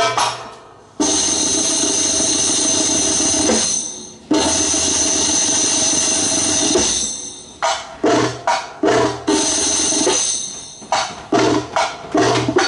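Belly dance music carried by drums: two long drum rolls, each starting sharply and fading away, then a run of separate heavy drum beats from about halfway in.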